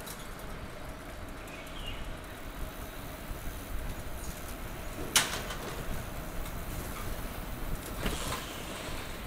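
Steady street traffic noise picked up while riding a bicycle, with a sharp knock about five seconds in and a softer one about three seconds later.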